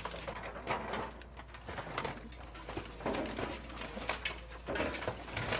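An excavator's demolition grapple crushing and tearing a car body: irregular metal crunches, cracks and creaks, over a steady low drone.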